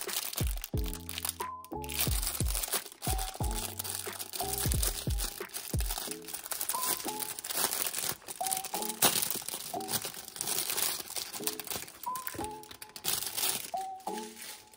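Packaging crinkling and rustling with many small crackles as items are unwrapped, over soft lo-fi background music; the music's bass line drops out about six seconds in.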